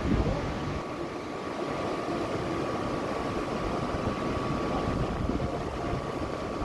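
Tropical-storm wind blowing steadily, with gusts buffeting the microphone in an uneven low rumble.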